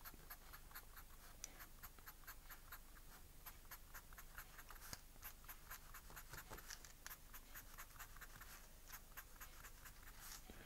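Felt-tip pen drawing quick short strokes on paper: a faint, rapid run of small scratches, several a second.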